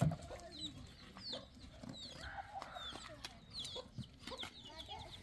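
Chickens clucking, with small birds chirping high above them. A single knock comes right at the start.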